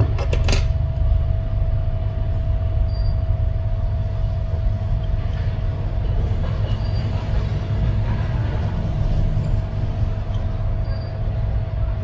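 Steady low machine hum with a constant mid-pitched tone, like a fan or blower running, and a faint short high beep about every four seconds. A few sharp clicks sound right at the start.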